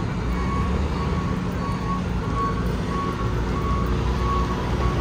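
Vehicle reversing alarm beeping steadily, about three beeps every two seconds, over the low rumble of engines and street traffic.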